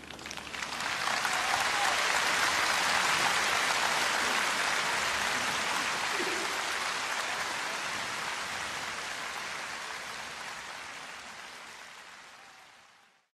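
Audience applauding after a recorded performance of the song, steady at first, then fading out and stopping just before the end.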